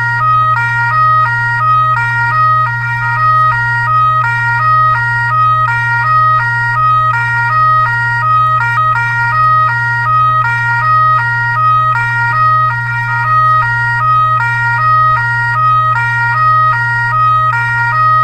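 Fire truck siren in a steady hi-lo pattern, stepping back and forth between two pitches, over a constant low hum.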